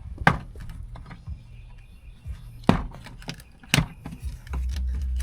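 Door panel retaining clips of a Nissan 280ZX snapping loose as the panel is pried off the door: three sharp pops with smaller clicks between them. Low music plays in the background, its bass swelling near the end.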